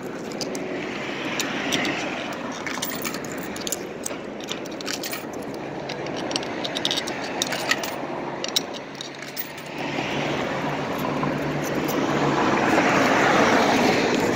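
City street traffic: cars and engines passing, growing louder about ten seconds in, with scattered clicks through the middle.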